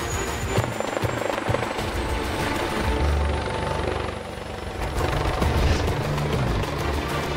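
Air ambulance helicopter running up for take-off, its turbine whine slowly rising in pitch, under background music.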